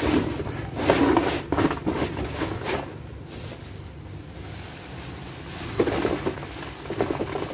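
Plastic bags rustling and crinkling as they are handled. The sound comes in several bursts, with a quieter stretch in the middle.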